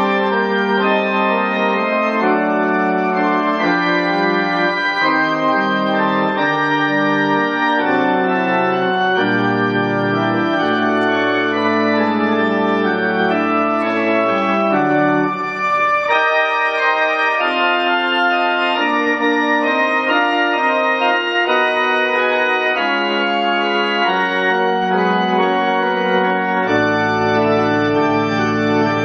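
Church organ playing the postlude: full sustained chords that change every second or so, with deep bass notes joining about nine seconds in and again near the end.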